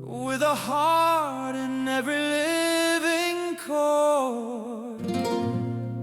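Mariachi-style song: a melody line with vibrato sweeps between held notes over strummed guitar and a steady low bass note, which drops out about five seconds in.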